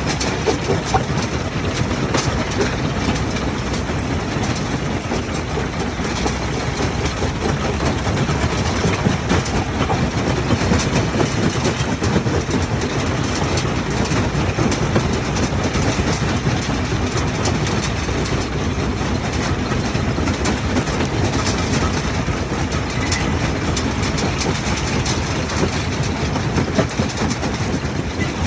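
Rock-crushing machinery running steadily, with a dense, irregular clatter of stone knocking and rattling through it over a continuous engine-like rumble.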